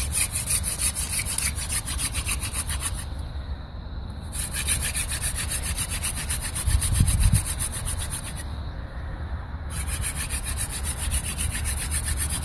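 Hand drill friction fire: a mullein and willow spindle spun back and forth between the palms, grinding in the hearth notch with a fast, rhythmic rubbing, about eight strokes a second. It breaks off briefly twice as the hands run back up the spindle. The rubbing is grinding out the hot wood dust that should build into an ember.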